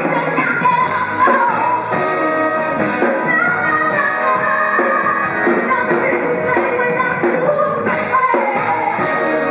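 Live band with keyboards, saxophone, bass guitar and drums playing loudly, with a woman singing over it into a microphone.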